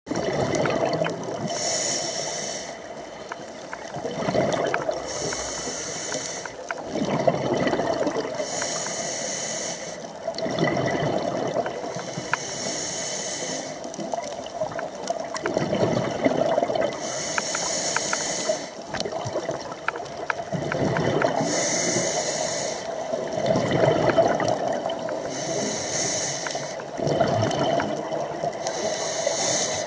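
Scuba diver breathing through a regulator underwater, about one breath every four seconds. Each inhale draws a high hiss through the demand valve, and each exhale is followed by a rumbling gush of bubbles from the exhaust.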